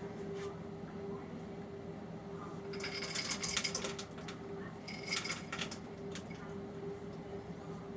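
Solid food pieces being tipped into a cooking pot, rattling and clattering in two bursts, the second shorter, over a steady low hum.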